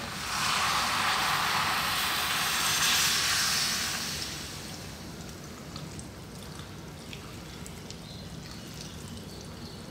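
Coconut milk poured from a jug onto vegetables in a large aluminium pot, splashing. The pour is loudest for the first four seconds, then quieter as it goes on.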